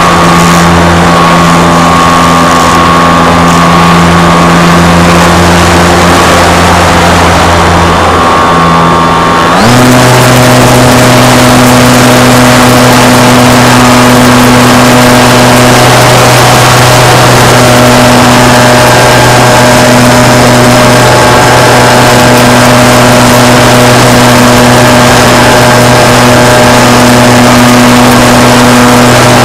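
A model aircraft's motor and propeller running, heard from the onboard camera as a steady, loud whine with rushing air. About ten seconds in, the pitch steps up as the throttle is raised, then holds steady.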